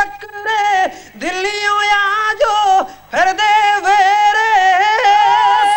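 Male kavishari singing: a man's voice holding long, wavering sung lines through a microphone, with short breaks about a second and again about three seconds in.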